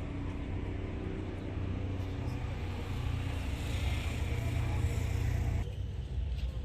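Road traffic: a low engine rumble with tyre hiss swelling as a vehicle passes, peaking about five seconds in, then cutting off abruptly.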